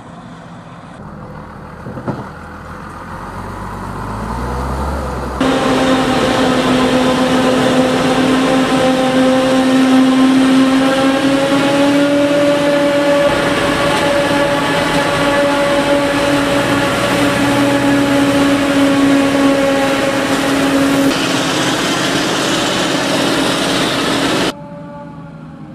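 Claas Jaguar 940 forage harvester chopping maize, its engine and chopper running under steady load with a strong, steady whine. The sound is quieter and rising at first, loud and close from about five seconds in, then cuts off abruptly near the end.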